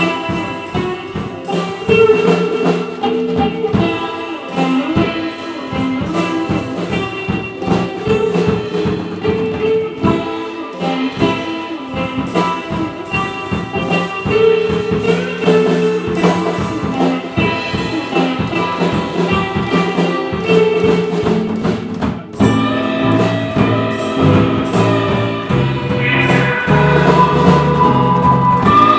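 Live band music with guitar and drums playing a steady beat. About 22 seconds in the music breaks briefly and moves into a new section with heavier low notes.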